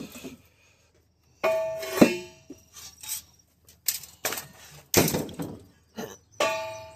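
Objects being shifted and knocked together as stored gear and plastic car ramps are pulled out: about five separate sharp knocks and clanks, each with a brief ringing tail, with quiet gaps between.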